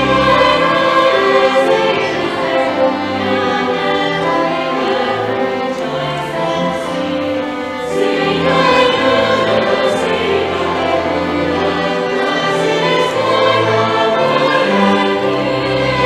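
Mixed choir singing a Christmas piece with violins and double bass, the voices holding long, sustained notes.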